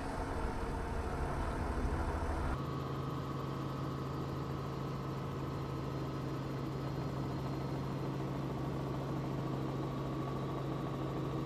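An engine running steadily at idle, a low even hum with a fixed pitch; the sound changes abruptly about two and a half seconds in and then runs on unchanged.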